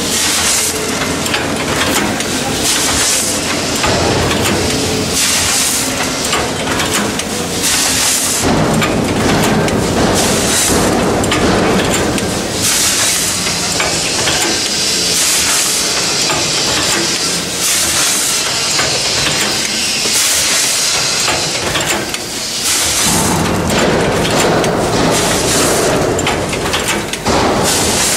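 Vertical form-fill-seal bagging machine running: a loud, steady mechanical noise with hissing that swells and fades.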